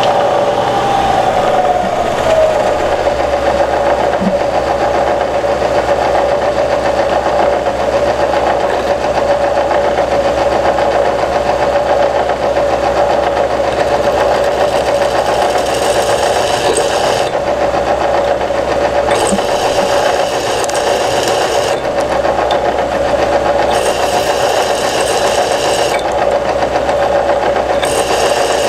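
An electric power tool's motor running steadily with a strong, even hum. A higher hiss comes in for a few seconds at a time, four times in the second half.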